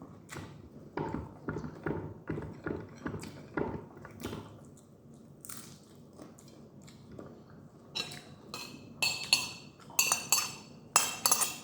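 Close-up chewing and biting of Indomie noodles, egg and rice, soft mouth sounds about twice a second. From about eight seconds in comes a run of sharp, ringing clinks of tableware against a dish.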